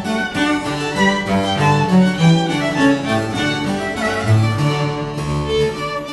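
Instrumental background music: a harpsichord-like plucked keyboard with violin and cello, playing a melody of quick, changing notes.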